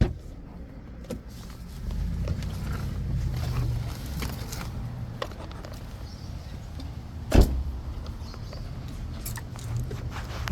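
Inside a car: a steady low rumble with scattered small clicks and one loud thump about seven seconds in.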